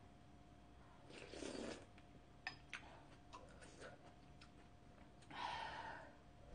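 Two soft slurps of hot red stew broth sipped from a wooden spoon, one about a second in and one near the end, with a few faint clicks of spoon and mouth between them.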